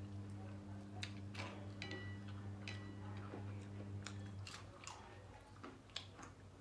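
Eating sounds: crunching and chewing of fried samosa pastry, with scattered clicks of food and fingers on steel plates, two of them leaving a short metallic ring. A low steady hum runs under the first four and a half seconds and then stops.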